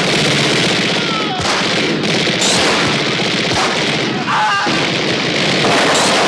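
Sustained rapid gunfire and battle noise from a science-fiction film's futuristic weapons, dense and unbroken, with a few short whistling glides in pitch about a second and four seconds in.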